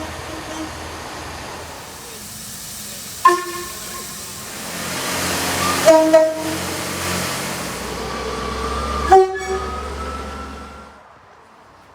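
Train horn sounding four short blasts: one about three seconds in, two close together around six seconds, and one just after nine seconds. Between them the rumble and hiss of the train going by, which drops away near the end.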